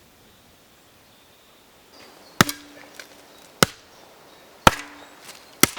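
An axe chopping into wood: four sharp strikes about a second apart, starting about two seconds in, two of them followed by a short low ring.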